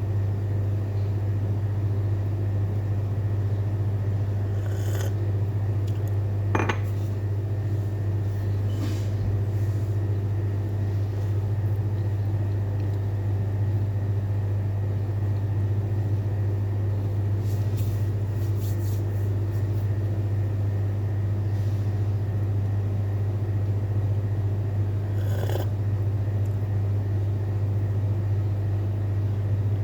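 A steady low hum, with a few faint light clicks and clinks now and then.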